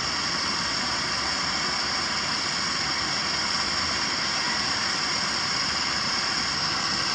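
Steady hiss of an LPG gas burner heating a traditional cast-iron berondong popcorn cannon, even and unbroken throughout.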